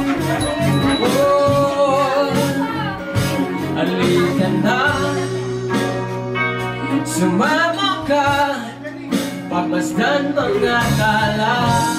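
Live rock band playing: a voice singing over electric guitars and a drum kit.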